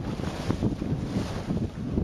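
Wind buffeting the microphone over the steady rush and splash of water along the hull of a Nordic Folkboat sailing at speed.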